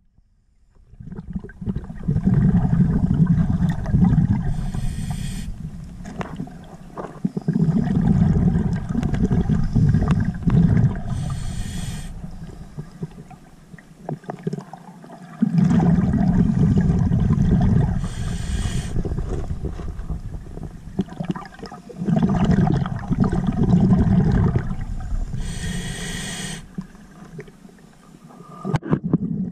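A diver's scuba regulator breathing underwater: a short hiss of inhaled air through the regulator, then a longer, louder burst of exhaled bubbles, repeating about every seven seconds.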